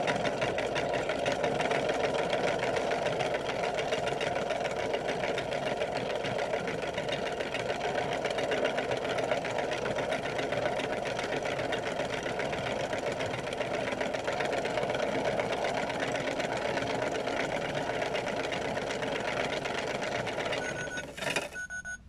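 Kid Connection toy washing machine on its spin setting: the small motor whirs steadily, with the coloured plastic balls in the drum making a constant fine rattle. It stops about 21 seconds in, with a short beep as it does.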